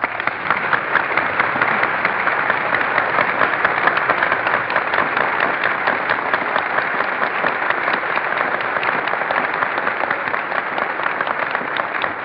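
A large banquet audience applauding steadily, heard on a 1942 radio broadcast recording with the treble cut off.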